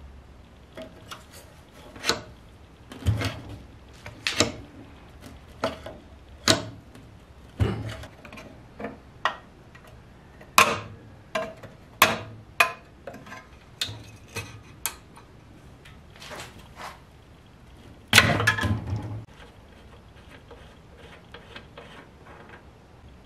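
Sharp metallic clicks and knocks of a wrench being fitted and worked on the spark plug of an old Briggs & Stratton engine, irregularly spaced, with a louder clatter lasting about a second near the end.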